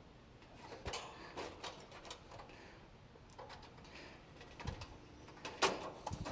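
Scattered light clicks and taps of hands working the fan motor wiring and terminals inside an air-conditioner condenser, the sharpest near the second second and again in the last couple of seconds.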